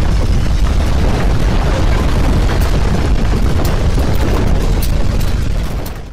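Landslide: a loud, steady, deep rumble of rock and debris coming down, with scattered sharp cracks in the second half. It fades and cuts off at the end.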